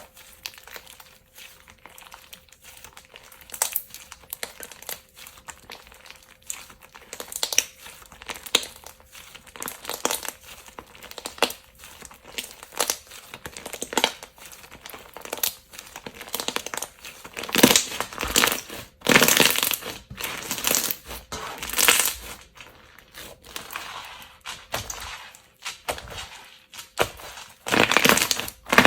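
Slime being squeezed, pressed and poked by hand, making rapid sticky crackling and clicking pops. The crackling grows denser and louder about two-thirds of the way through and again near the end.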